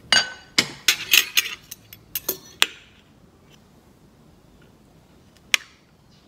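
Metal lid and spoon clinking against a plate as rice is served: a quick run of clinks and taps over the first three seconds, then one more sharp tap about five and a half seconds in.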